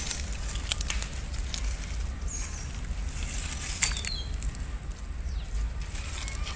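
Outdoor ambience: a steady low rumble, a few small birds chirping briefly about two and four seconds in, and scattered sharp clicks and rustles as a rope is handled against a tree branch, the loudest click a little before four seconds.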